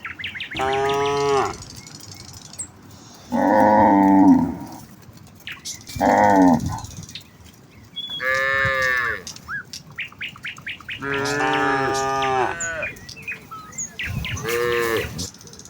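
Cattle in a herd mooing in turn: six separate calls of about a second each, some higher and clearer, some lower and rougher. Birds chirp faintly between the calls.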